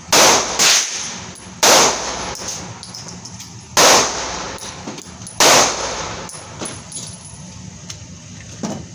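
Pistol shots fired one at a time, five in all at uneven spacing, the first two about half a second apart. Each crack is followed by a short ringing decay.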